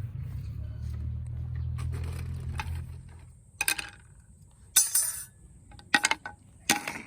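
A low steady hum that stops about three seconds in, then four sharp clinks of hard objects knocked together, the loudest near the middle.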